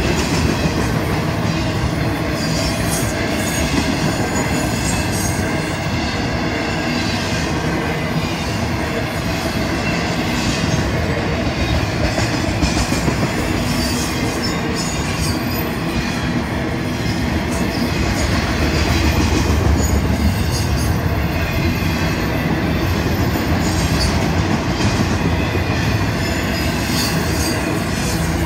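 Florida East Coast Railway intermodal freight cars rolling past at close range: a continuous rumble and clatter of steel wheels on the rails.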